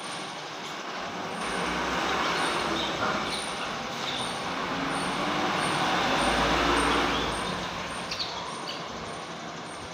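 A road vehicle passing by: a broad rushing noise with a low rumble that swells to its loudest about six to seven seconds in and then fades. A few faint bird chirps come near the end.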